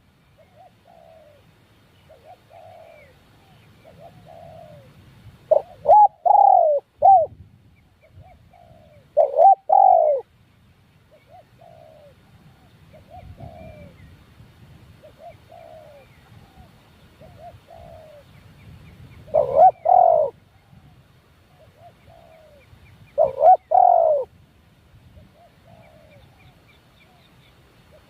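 Doves cooing. Loud, close calls come in four groups, and quieter coos repeat every second or two between them.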